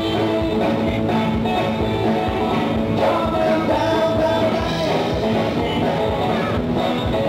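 Live rock and roll band playing: electric guitars over bass and drums with a steady beat.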